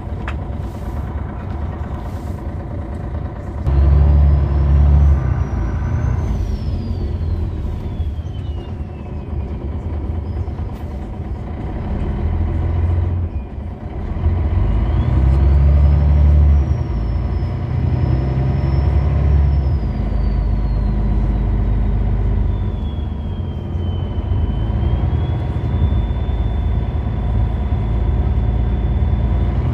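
Inside a MAN A20 city bus: its MAN D2866LUH24 six-cylinder diesel runs under load through a ZF 5HP592C automatic gearbox, with the engine note swelling as the bus accelerates about four seconds in and again about fifteen seconds in. A high whine rises and falls with the bus's speed, and there are a few short clicks near the start.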